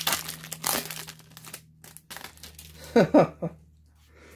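Foil booster-pack wrapper crinkling as it is torn open, for about the first second and a half. About three seconds in, three short voice-like sounds, each falling in pitch.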